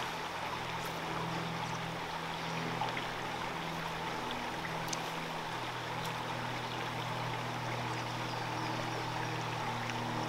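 Mountain trout stream running over a rocky riffle: a steady rush of water. Underneath sits a low steady hum that shifts in pitch about halfway through.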